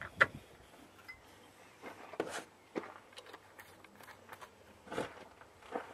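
A few faint, scattered clicks and rustles of handling, with no compressor or engine running.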